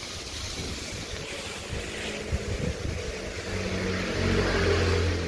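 A motor vehicle's engine running steadily, growing louder about three and a half seconds in.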